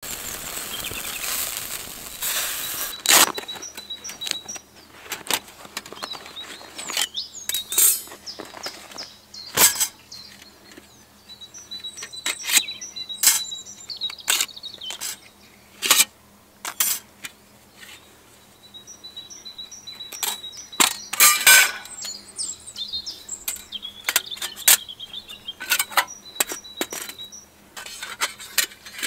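Repeated sharp metal clinks and clacks as the panels of a folding steel Firebox stove are unfolded and fitted together, with birds chirping between them. The first few seconds hold a steady hiss of meat sizzling on the stove's grill.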